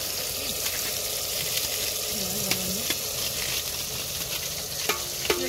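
Chopped tomatoes sizzling in hot oil in an aluminium pot over a wood fire, a steady hiss with scattered small pops and crackles.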